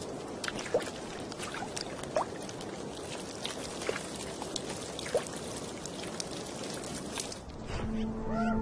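Water trickling and dripping over thawing ice: a steady wash with scattered small drips. Near the end, a sustained droning music chord comes in.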